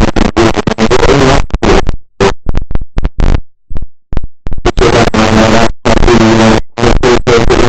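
Loud, harsh microphone static that cuts in and out in rapid, choppy bursts, with faint pitched fragments buried in the noise: the sign of a faulty microphone recording little but static.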